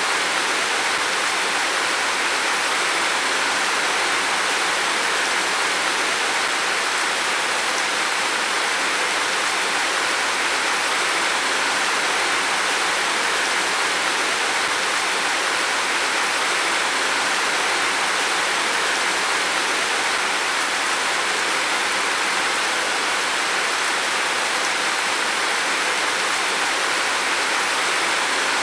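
Heavy rain falling steadily on a roof, a dense even hiss with no distinct drops or thunder.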